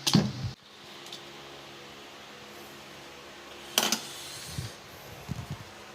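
A loud knock right at the start and a sharp clack about four seconds in, followed by a few light knocks, over a steady low hum: objects being handled.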